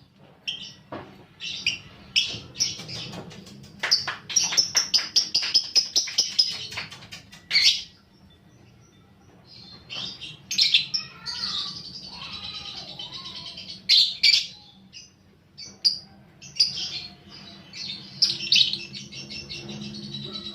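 Young lovebirds chattering: sharp high chirps, a fast run of rapid clicking chirps about four seconds in, then longer buzzy chattering trills.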